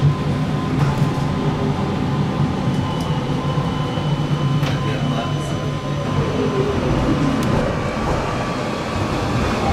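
Siemens Combino Advanced tram heard from inside the car while running: a steady rolling noise and motor hum, with a whine that falls in pitch about six seconds in as it slows. Near the end this gives way to tram noise heard from the street.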